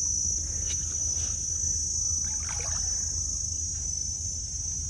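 Insects buzzing steadily in a high, shrill drone, over a low steady rumble.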